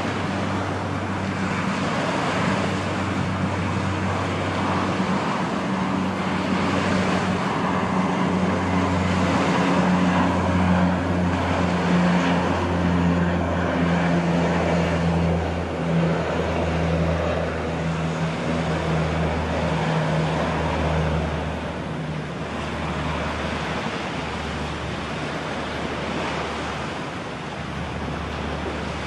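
Antonov An-24's two turboprop engines droning as the aircraft flies past on its landing approach. The low propeller hum grows louder toward the middle and sinks slightly in pitch as it passes, over a steady hiss of wind and surf on the microphone.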